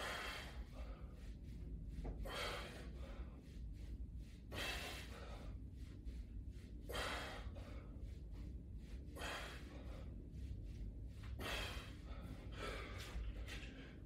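A man breathing hard from exertion during resistance-band side bends, with a sharp, hissy exhale about every two seconds, some seven breaths in all.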